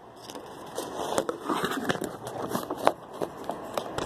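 Handling noise close to the microphone: hands and plastic eyeglass frames rubbing and tapping, giving a run of crackles, scrapes and sharp clicks that is busiest in the middle.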